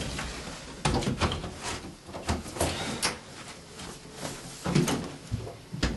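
Irregular knocks and clicks, a few louder thumps among them, like a door and someone moving about.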